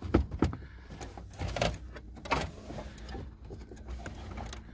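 Plastic passenger airbag cover being pushed and slid onto a Jeep Cherokee XJ dashboard's metal clips: scattered knocks and rubbing of plastic against the dash.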